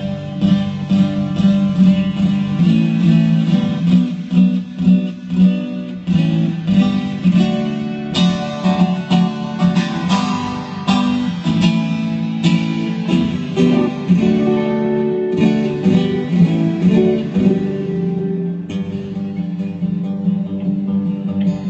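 A folk band playing music during a sound check. A strummed acoustic guitar is to the fore, with regular strokes over steady held notes.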